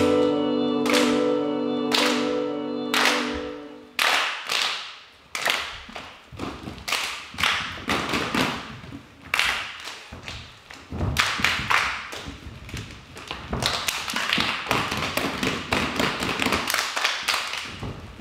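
The last held notes of the music, struck about once a second, die away after about four seconds; then a long run of sharp taps and thumps follows, uneven and crowded, thickest in the middle and near the end.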